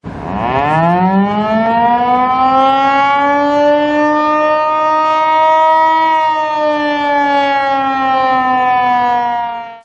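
Outdoor warning siren winding up: one wailing tone rises in pitch over the first two seconds, holds steady, sags slightly in its last few seconds and then cuts off abruptly.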